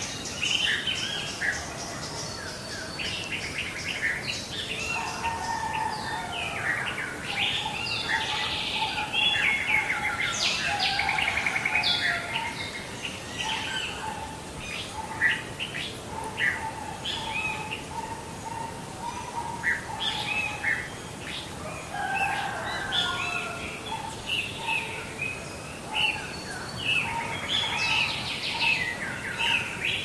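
Several songbirds singing and chirping at once, their short calls and trills overlapping, with a lower repeated note running underneath through the middle stretch.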